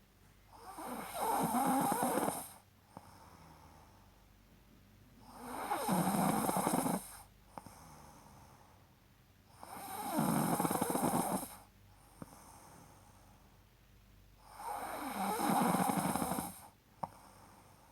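A sleeping person snoring: four rough, rattling snores, each about two seconds long, coming every four to five seconds with quiet breaths between.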